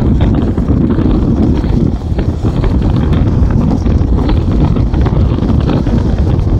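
Wind buffeting the microphone at a moving bus's window, over the steady low rumble of the bus travelling along the highway.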